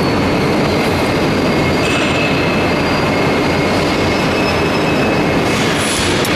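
Loud, steady clatter and hum of factory machinery, with a faint high whine for a few seconds in the middle.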